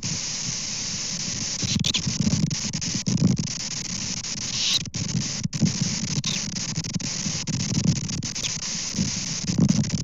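Storm wind gusting against an outdoor camera microphone: a steady hiss with uneven low rumbling surges every second or two, and a few short faint high blips.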